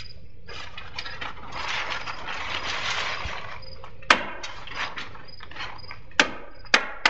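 Stapler driving staples through plastic house wrap into wall sheathing: three sharp loud snaps, about 4 seconds in and twice more near the end, with smaller clicks between. Before them the house wrap rustles as it is pulled flat against the wall.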